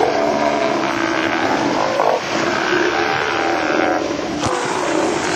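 Boat engine running steadily, a constant mechanical drone with level tones.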